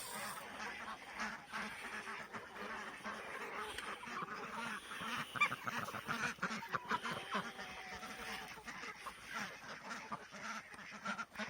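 A flock of farm ducks and other poultry calling and quacking, many short overlapping calls, as they gather at feeding time, roused by the keepers' whistle.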